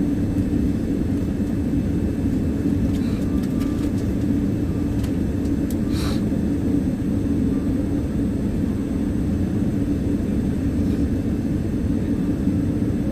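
Steady low drone of an airliner cabin on the ground before takeoff, with a constant hum. A few faint clicks come near the middle, the clearest about halfway through.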